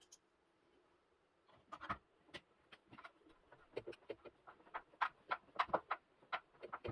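Screwdriver clicking and scraping against the terminal screws of a plastic electrical enclosure: a run of irregular small clicks and taps that starts about a second and a half in and grows busier near the end.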